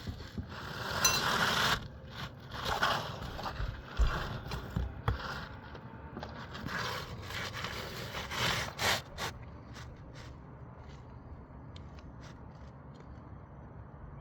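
Asphalt roof shingles scraping and crinkling as a roof snake nailing tool is worked in under a lifted shingle, in several short spells with a couple of knocks.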